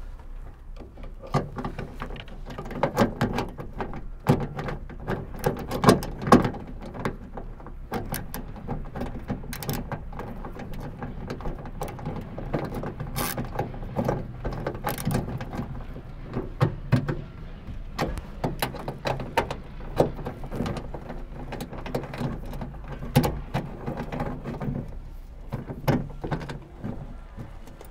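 Hand ratchet with a 10 mm socket and extension clicking in repeated bursts as it drives in and tightens the bolts of a trunk latch, with small metal knocks of the tool against the latch.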